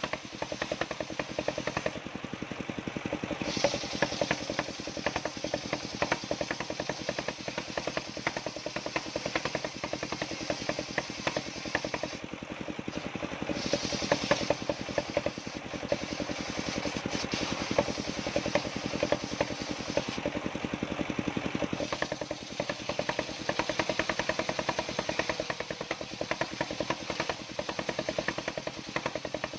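An engine running steadily with a fast, even pulsing.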